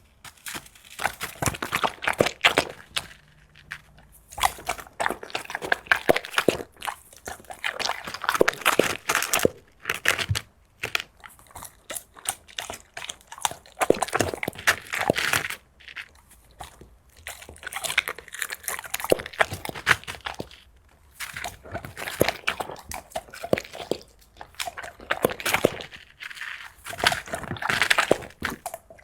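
A dog crunching and chewing seafood in bouts of rapid crunches, with short pauses between them.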